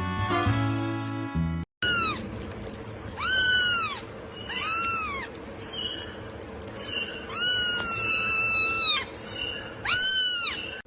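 A cat meowing five times. Each meow rises and then falls in pitch, and the fourth is drawn out longer than the rest.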